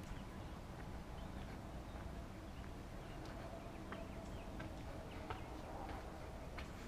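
Footsteps climbing porch steps and walking across the porch, a faint click every half second or so from about three seconds in, over a low steady rumble of camera handling.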